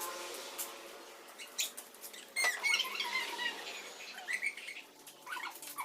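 Faint chirps like small birds, clustered around the middle and again near the end, with scattered light clicks.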